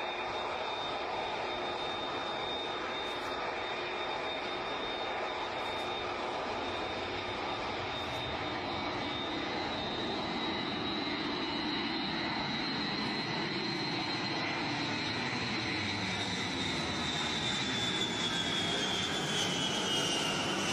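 Boeing B-52 Stratofortress's eight jet engines roaring as the bomber flies low past and overhead. A high whine rides on the roar, holds steady, then slides down in pitch over the last few seconds as the aircraft goes by, while the roar grows a little louder.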